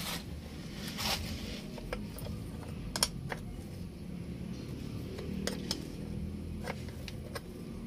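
A wrench working the nut on a truck battery's cable terminal clamp to loosen it: scattered sharp metallic clicks and ticks, a dozen or so, irregularly spaced.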